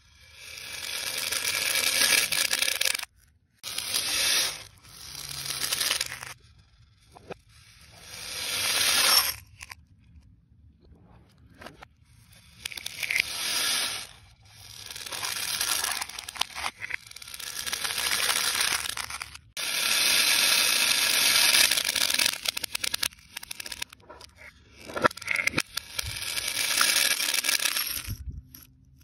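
Plastic beads pouring and rattling against clear plastic cups, played backwards: a series of rattling swells that build up and stop abruptly, about eight of them with short pauses between.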